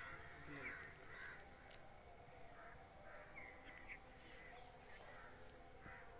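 Faint outdoor ambience: a steady high insect drone pulsing about one and a half times a second, with birds calling now and then.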